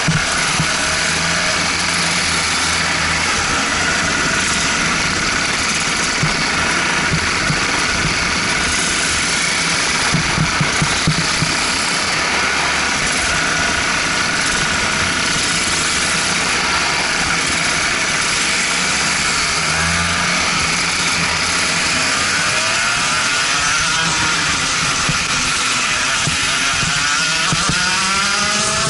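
Racing kart engines of a slow-moving pack running at low throttle, heard from onboard one of the karts. Near the end several engines rev up together, their pitch rising.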